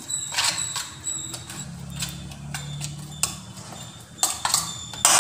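A spoon scraping and clinking against a stainless-steel bowl while a wet spice paste is mixed: irregular sharp clicks with scrapes in between.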